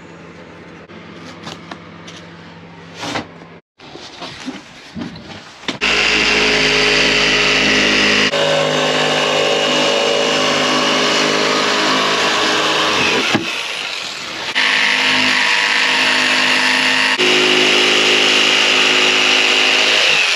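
Bosch jigsaw cutting a wooden panel. Its motor and reciprocating blade start about six seconds in and run steadily, with a brief drop in level partway through. Before that there are a few quiet knocks and handling sounds.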